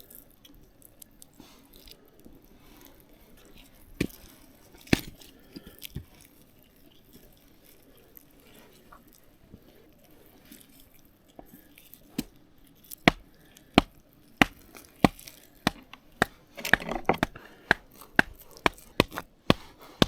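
Knife chopping on a cutting board: a few separate knocks, then from about twelve seconds in a steady run of sharp chops, about two a second.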